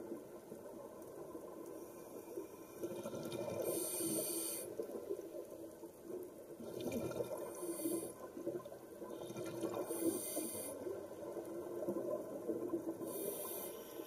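Scuba diver breathing through a regulator underwater: a short hissing inhale about every three seconds, four in all, with exhaled bubbles gurgling and rumbling in between.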